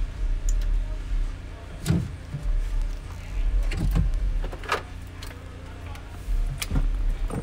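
Light knocks and clicks of a car door speaker being handled and pressed into its mounting hole in the door's metal frame, a few separate taps, over a low rumble that comes and goes.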